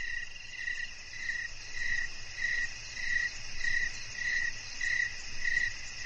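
Crickets chirping at night: a regular chirp repeating a little under twice a second over a steady, higher insect trill.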